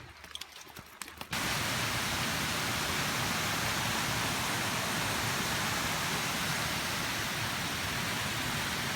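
Steady rushing water of a stream or waterfall, starting suddenly about a second in and holding an even, full hiss. Faint footsteps on the trail come before it.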